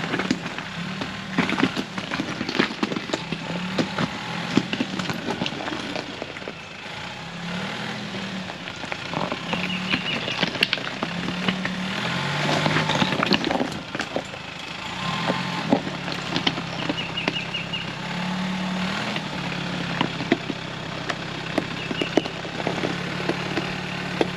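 A 2024 Toyota Tacoma TRD Off-Road's engine running at low revs in four-wheel-drive low, its note stepping up and down slightly as it crawls over loose rocks. Many sharp cracks and crunches come from rocks shifting and popping under the tyres.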